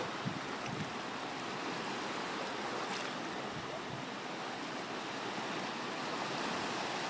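Surf washing on a sandy beach: a steady, even wash of small waves.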